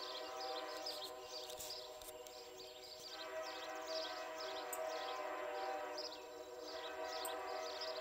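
An Amtrak locomotive's K5LA five-chime air horn sounds a held, steady chord from an approaching train. It eases off briefly twice, about two seconds in and again around six seconds.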